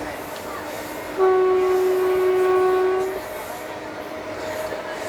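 WAG5 electric locomotive's horn sounding one steady blast of about two seconds, starting a little over a second in. It is heard from inside a passenger coach over the continuous rolling noise of ICF coaches on the track.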